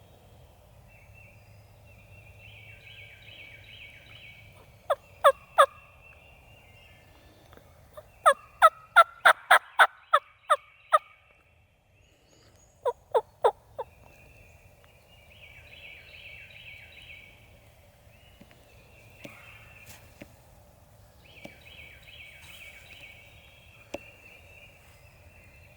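Wild turkey calling in loud, sharp, evenly spaced notes: a burst of three about five seconds in, a longer run of about nine a few seconds later, then four more.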